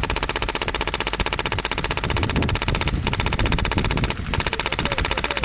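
Airsoft gun firing on full auto: long bursts of rapid, evenly spaced shots, broken by two short pauses about three and four seconds in and stopping near the end.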